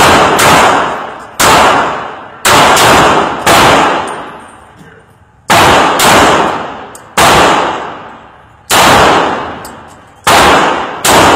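.40-calibre Glock pistol fired in single shots, about a dozen at uneven intervals of roughly one to two seconds, some in quick pairs. Each shot rings and fades off the walls of an indoor range.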